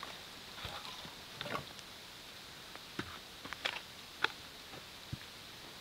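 Birch logs and firewood being set down on a stone fire pit: a few light, scattered wooden knocks and clacks. Under them runs the faint, steady patter of light rain.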